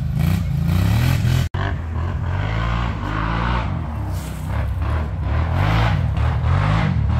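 ATV engine running under changing throttle, its pitch rising and falling as it revs up and eases off, with an instant drop-out about a second and a half in.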